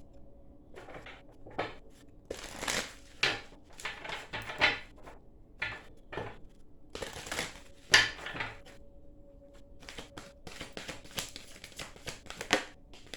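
Tarot cards being shuffled and handled: a run of irregular riffling and slapping sounds, with one sharp louder sound about eight seconds in.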